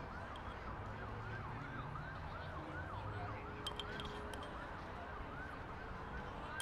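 A faint emergency-vehicle siren in yelp mode, its rising-and-falling wail repeating about three times a second.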